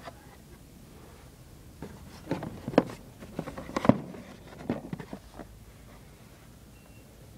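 Plastic blister packs and cardboard backing cards of die-cast toy trucks clacking and rustling as a hand sorts through them on a store display, a quick run of clicks and knocks about two seconds in, loudest twice near the middle.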